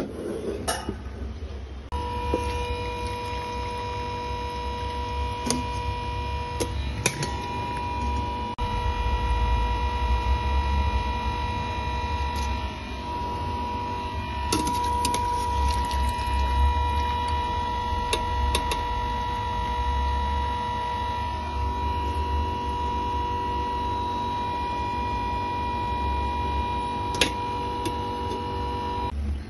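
A steady hum made of several pitches over a low rumble, its mix of tones shifting a few times. A handful of light metal clinks from a wire-mesh strainer knocking against the aluminium pot while lifting boiled vegetables out of the water.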